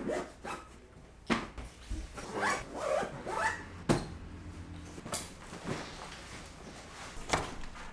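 Backpack zippers being pulled and bag fabric rustling as gear is packed, with a few sharp knocks scattered through.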